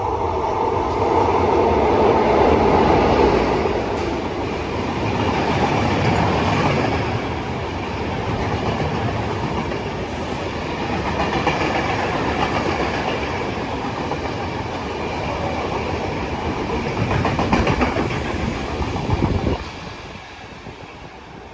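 A train passing at speed, the steady noise of its wheels on the rails rising and easing as the cars go by. A few sharp knocks come near the end, then the noise drops off suddenly as the last car passes.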